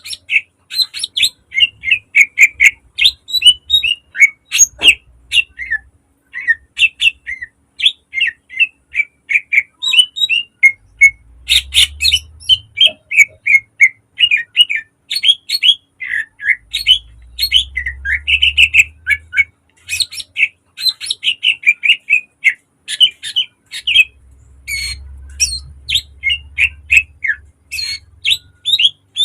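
Green leafbird (cucak ijo) singing non-stop: a rapid, varied run of short sharp chips, trills and whistled notes, with mimicked phrases of other birds woven in. A low rumble sits underneath at times.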